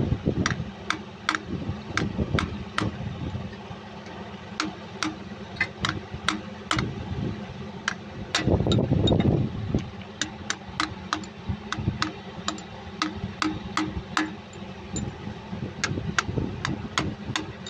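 Ball-peen hammer tapping a steel punch to drive the front crankshaft oil seal of a Cummins KTA50 16-cylinder engine into its housing: sharp metallic taps, about two or three a second in short runs.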